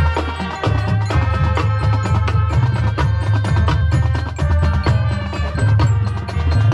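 Marching band playing its field show music, with sharp struck percussion over a moving line of strong low bass notes.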